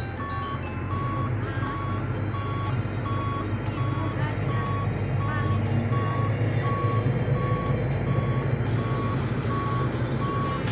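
Kobelco excavator's diesel engine running with a steady low rumble while its travel alarm beeps evenly, a bit more than once a second: the machine is tracking.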